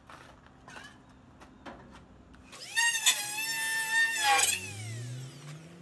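Corded Dremel rotary tool switched on: after a few light handling clicks it spins up to a high steady whine for about two seconds, then is switched off and its pitch falls away as it winds down.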